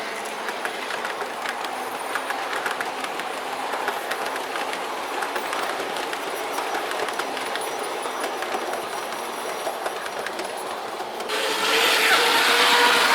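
OJ gauge model train, an EF64 electric locomotive with its passenger cars, running along the track, the wheels clicking over the rail joints. About 11 seconds in the sound suddenly grows louder.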